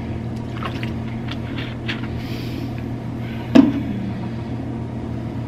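Steady low hum of a small room, with faint small clicks and rustles and one sharp knock about three and a half seconds in.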